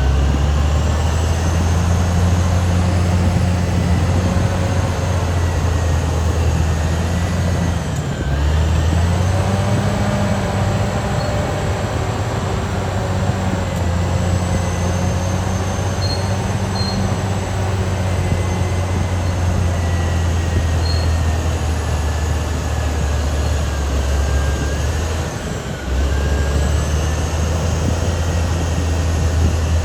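Caterpillar D6R XL bulldozer's diesel engine running steadily under load, with a thin high whine above the engine note. The engine note dips briefly twice, about eight seconds in and again a few seconds before the end.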